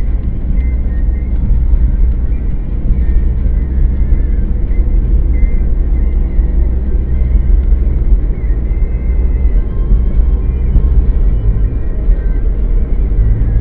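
Steady low road and engine rumble of a moving car, heard from inside the cabin through a dashcam microphone.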